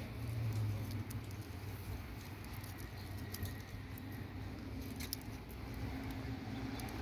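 Light rustling and scratching as a hand strokes a cat's fur, with scattered small clicks over a low steady hum.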